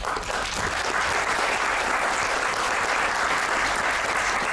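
Audience applauding: dense, steady clapping from a seated crowd.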